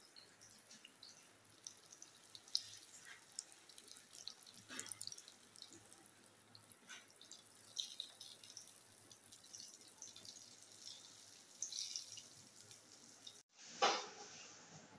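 Hot oil sizzling and crackling in a brass karahi as kebabs fry, with a metal spatula scraping in the pan. Near the end, after a brief break, a single louder clatter.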